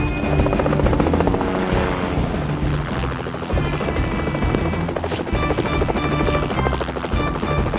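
Cartoon rescue helicopter's rotor chopping steadily as it hovers and winches a fireman down, with background music playing over it.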